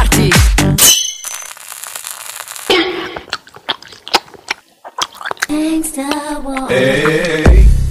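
Mouth sounds of a person eating an ice pop. A long slurp is followed by scattered wet sucking and lip-smacking clicks, then a drawn-out wavering hum of enjoyment near the end.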